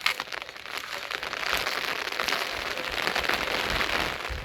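Heavy rain falling: a dense, steady patter of many close drop hits, with one sharper tap right at the start.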